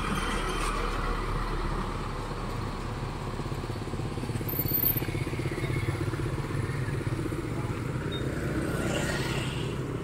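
A truck engine running steadily as the truck pulls away, with motorcycles going by.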